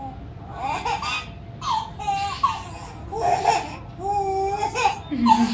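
A baby laughing in a string of short, high-pitched squeals, with lower laughter mixed in during the second half.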